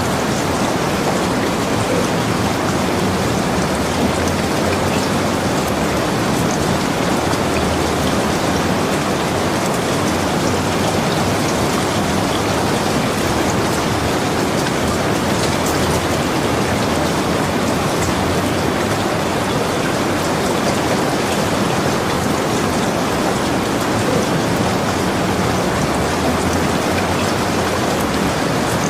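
Steady rain: an even hiss that holds at the same level throughout, with no change.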